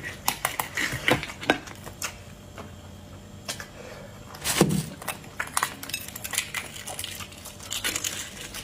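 Shells of boiled chicken-embryo eggs cracking and being picked off by fingers: a string of small crisp crackles and clicks, with one louder, duller sound about halfway through.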